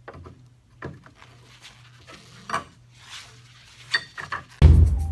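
A few scattered metal clinks and knocks of a small crowbar and hammer prying boards loose from a wooden pallet. Near the end, loud music with a drum beat starts.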